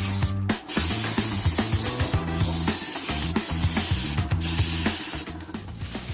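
Spray paint hissing in long bursts with short breaks, as paint is sprayed onto a bike frame, over background music with a steady low bass line.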